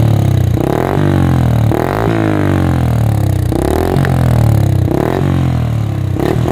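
Motorcycle engine idling steadily through an Akrapovič-style aftermarket silencer with its dB killer baffle fitted, which keeps the exhaust note quiet.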